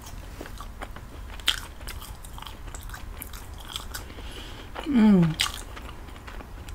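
Close-miked mouth sounds of someone chewing homemade pizza, with scattered sharp clicks and crunches, the strongest about a second and a half in. About five seconds in comes a short hum of voice that falls in pitch.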